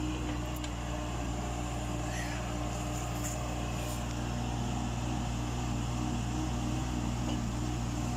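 Mini excavator's Yanmar 3TNV88 three-cylinder diesel engine running at a steady speed, with an even hum.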